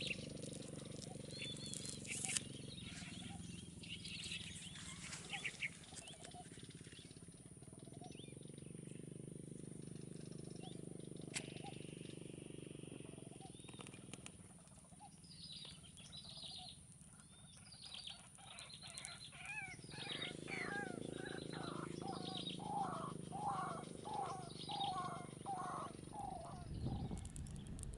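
Wild birds calling, with a fast series of repeated chirping notes in the second half, over a steady low background rumble.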